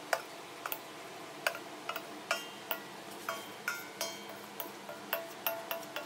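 A stainless steel mixing bowl knocking against the rim of a steel pot as the dry ingredients are tipped out. The result is a run of irregular metallic clinks, each ringing briefly, and they come faster near the end.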